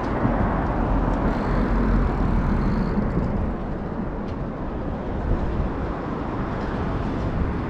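Steady road-traffic noise mixed with wind buffeting the microphone while riding a bicycle along a roadside bike path; a deep rumble is strongest in the first couple of seconds.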